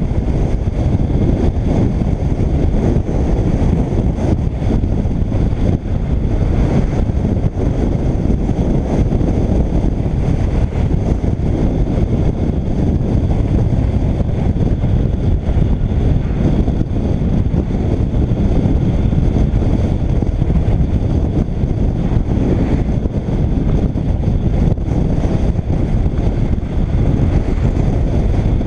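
Steady rush of wind over the microphone of a camera on a moving motorcycle, with the motorcycle's running noise mixed in. It is a loud, even roar, heaviest in the low end, that carries on without a break.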